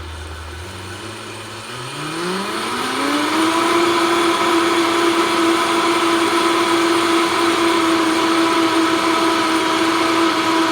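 Vitamix S50 blender motor spinning up, its pitch rising over about two seconds, then running steadily at high speed while blending batter.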